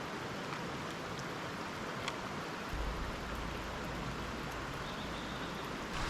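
Steady rush of a valley stream flowing over rocks, with a low rumble joining about three seconds in.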